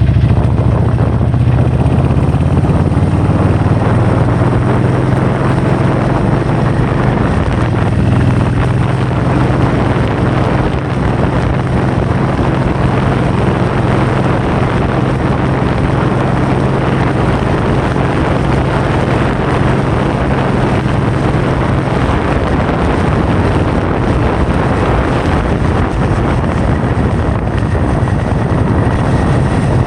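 Loud, steady wind rushing over the microphone, with a low steady drone underneath that fades about two-thirds of the way through.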